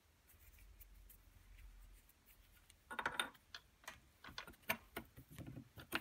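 Irregular metal clicks and light rattling from a stainless steel lathe cross slide handle being fitted onto the cross slide's shaft and dial, starting about three seconds in after a quiet stretch.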